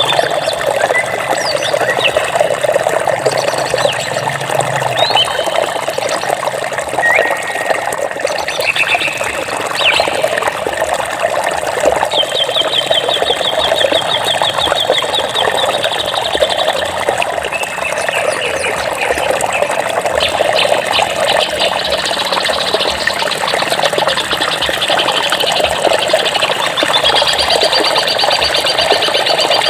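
Steady rushing of running water with birds chirping over it. Short chirps come throughout, with a rapid trill lasting several seconds about twelve seconds in and another near the end.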